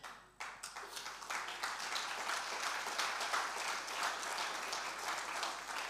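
Congregation applauding, starting about half a second in and going on steadily.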